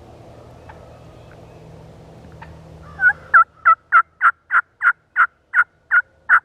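A wild turkey yelping: a run of about eleven loud, evenly spaced yelps, roughly three a second, starting about three seconds in.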